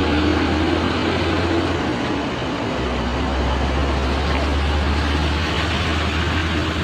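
Motor vehicle running steadily: a low engine hum under a constant rushing noise of road and wind, the hum dipping briefly about two seconds in.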